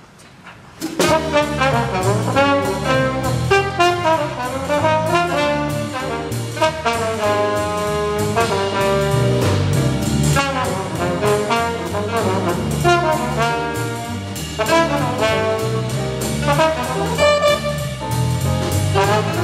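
Jazz ensemble playing, with a trombone and an alto saxophone out front over a drum kit; the band comes in about a second in, after a quiet start.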